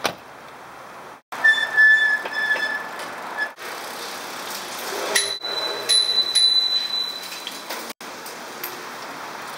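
Bicycle riding with steady wind and tyre hiss, broken by two steady high squeals: one about a second and a half in lasting about two seconds, and a higher one from about five seconds in. The sound cuts out abruptly several times.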